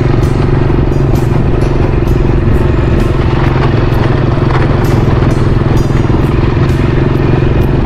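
Motorcycle engine running at a steady speed, heard from the rider's seat, with irregular small clicks and rattles from riding over a rough dirt track.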